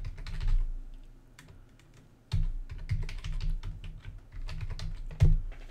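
Typing on a computer keyboard: a short run of keystrokes, a brief lull, then a longer burst of typing that ends with one harder keystroke near the end.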